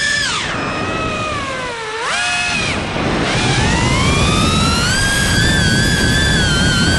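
iFlight Protek 35 cinewhoop FPV drone's brushless motors whining, the pitch sliding down as the throttle comes off, a short blip up about two seconds in, then climbing back up from about three seconds in and holding high and steady.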